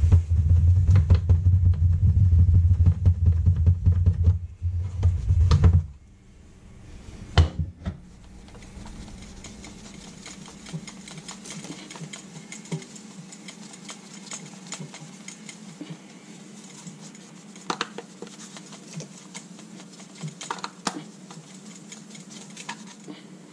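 A microfiber cloth rubbing and scrubbing over a small plastic solar panel, with light handling clicks and knocks. A loud low hum fills the first six seconds and cuts off abruptly.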